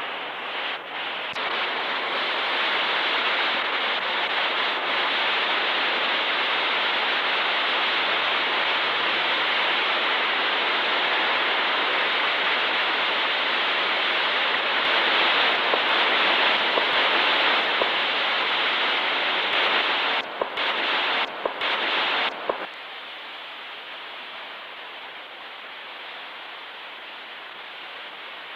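A steady rushing hiss without any tone in it. It breaks off briefly a few times about twenty seconds in, then carries on much quieter from about 23 seconds in.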